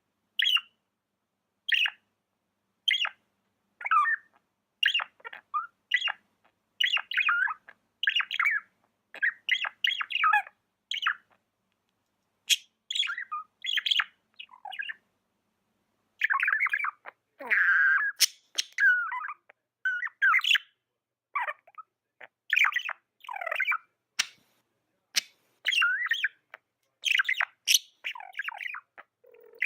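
Budgerigar chirping in a rapid string of short, high calls, with brief pauses now and then.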